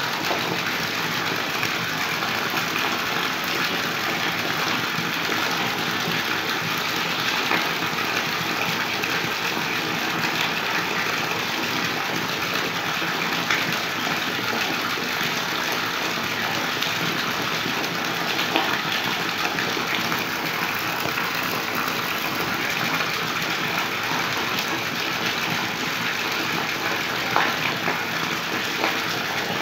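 A motor running steadily, giving an even, unbroken drone, with a few faint brief knocks.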